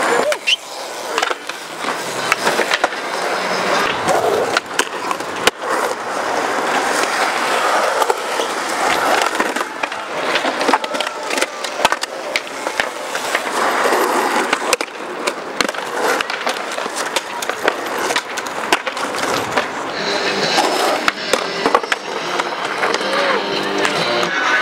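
Skateboard rolling on a concrete skatepark floor: a continuous wheel rumble broken by frequent sharp clacks of the board and trucks hitting the ground.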